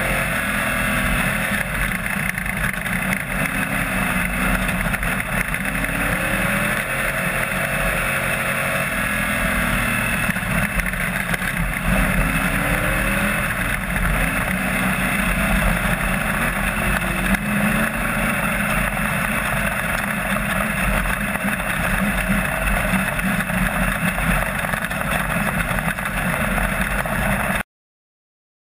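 AMCA speedway car's engine running hard on a dirt oval, heard from the cockpit through an onboard camera. The engine pitch rises and falls through the turns, and the sound cuts off suddenly near the end.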